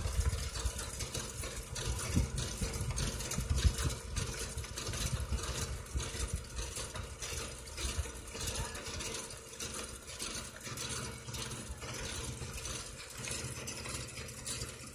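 Tractor engine running steadily, a continuous low rumble with irregular surges that are loudest in the first few seconds.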